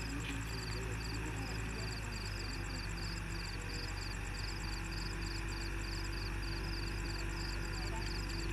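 Steady low hum of heavy machinery running. Crickets chirp over it in an even, repeating rhythm.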